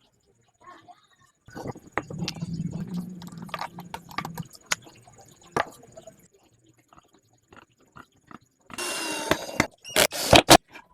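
Workshop handling of wood and a clamp: a stretch of rubbing and scraping with clicks, scattered sharp clicks, then a short scrape and several loud knocks near the end.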